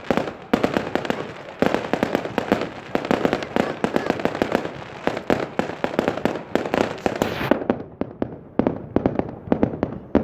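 Aerial fireworks going off in quick succession: a dense, unbroken run of bangs and crackles as shells burst one after another.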